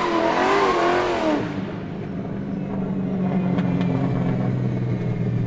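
Car engine revving, its pitch wavering up and down for about the first second and a half, then settling into a steady low drone.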